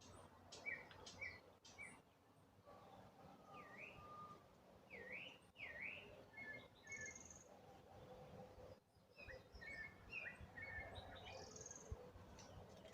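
Wild birds singing and calling faintly, with a mix of short chirps, swooping notes and quick repeated twitters from more than one bird, over a soft background hum of the outdoors.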